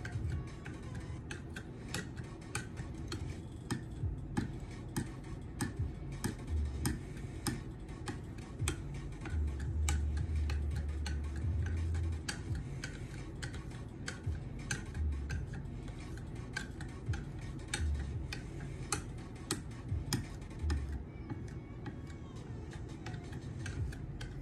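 Strokes of a KME guided sharpener's 0.5-micron carrier along a knife edge, heard as a run of light, irregular clicks and taps several times a second, with a few low bumps now and then.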